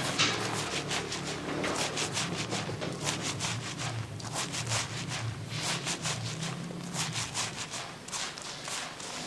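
Fingers scrubbing a shampoo-lathered scalp: quick, rhythmic wet rubbing and squishing of foam through hair, several strokes a second. A low steady hum sits underneath and fades out about seven seconds in.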